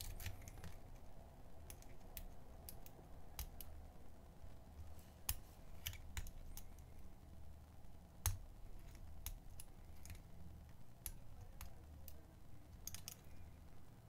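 Faint, irregular small metallic clicks of a lock pick working the pin stack of a Chubb 1K945 steel padlock's cylinder under a pry-bar tension wrench, during single pin picking. The strongest clicks come about five and eight seconds in, with a quick cluster near the end.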